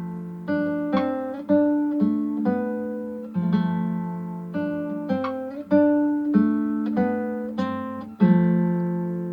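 Acoustic guitar music: single plucked notes and chords, each starting sharply and ringing down before the next, about one to two a second.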